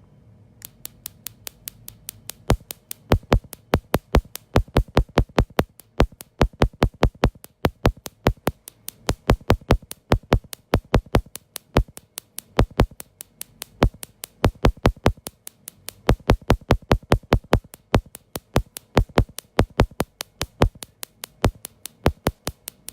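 Electronic background music with a fast drum-machine beat.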